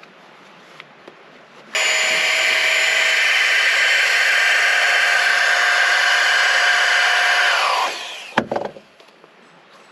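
A small electric motor switched on abruptly, running at a steady whir for about six seconds, then winding down with falling pitch when switched off, followed by a sharp thump.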